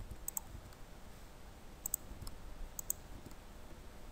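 Computer mouse button clicks, faint: three quick press-and-release double clicks, about a third of a second in, about two seconds in and near three seconds in.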